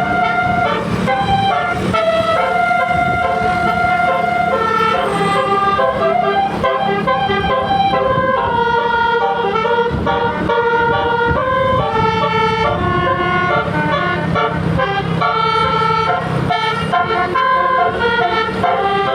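Bus 'telolet basuri' musical air horns playing a melody, stepping from note to note with several notes sounding at once, over a steady low hum.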